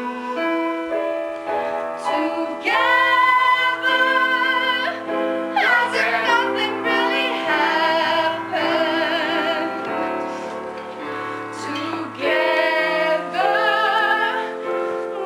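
Musical-theatre song: a woman's voice singing long held notes with vibrato over instrumental accompaniment.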